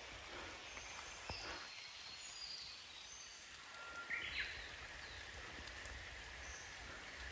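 Faint, steady hiss of water in a wet mountain forest, from rain and a valley stream, with a few short bird chirps, one louder about four seconds in.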